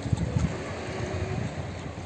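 Wind buffeting the microphone, with a few low thumps in the first half second, over a steady outdoor rush of a calm seashore.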